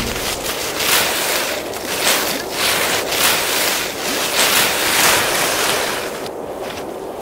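Snowstorm wind blowing in gusts, a rushing noise that swells and fades about once a second and eases near the end.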